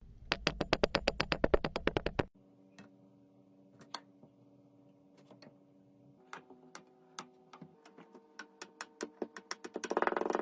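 Background music of held synth chords with sharp clicks and taps over it: a fast, even run of clicks over a low bass for the first two seconds, then sparse taps that quicken toward the end.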